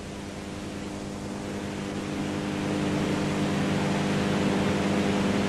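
A steady low droning hum at one even pitch, slowly getting louder.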